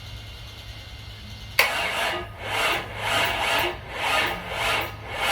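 6.2-litre LS V8 being cranked over by its starter, kicking in sharply about a second and a half in and turning over slowly with an even pulse of about two a second, without firing. The slow cranking is the sign of too little battery power.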